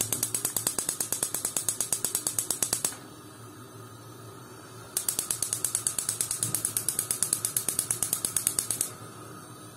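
Electric spark igniter of a gas stove clicking rapidly, about ten clicks a second, as the burners are lit. It runs in two bursts of about four seconds each, with a pause of about two seconds between them.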